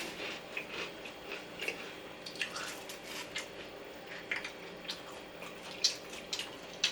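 People chewing food close to the microphone: a scattered run of small wet mouth clicks and smacks, several a second, with one sharper click near the end.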